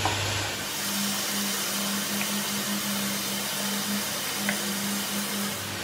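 Steady machine hum with hiss, like a small motor running, with a couple of faint light ticks.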